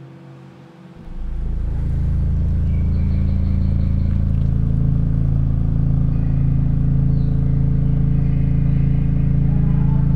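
A deep, steady droning rumble swells in about a second in and holds, with faint higher tones drifting above it.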